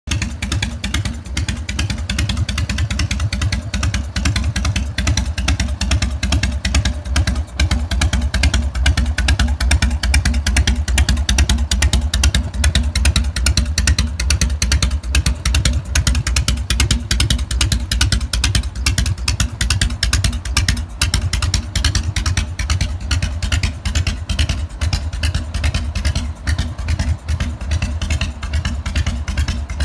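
Harley-Davidson FXSTB Night Train's Evolution V-twin running steadily through an aftermarket muffler, with the loping, uneven three-beat exhaust rhythm at idle.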